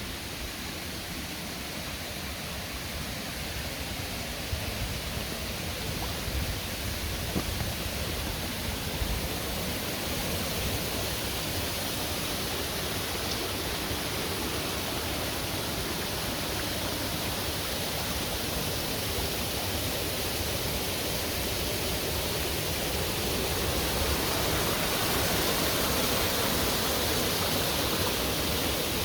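Steady rush of running water from the Henry's Run stream at its old sawmill dam, growing a little louder about three-quarters of the way through.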